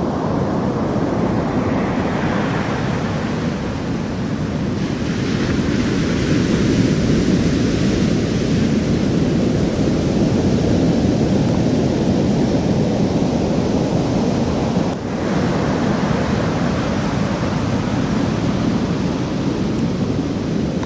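Heavy ocean surf breaking and washing up the beach: a steady rush of noise that swells and eases as the waves come in.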